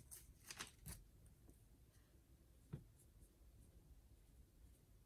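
Faint sounds of a felt-tip marker writing on notebook paper, after a soft rustle of paper bills in the first second and a single soft knock about halfway through.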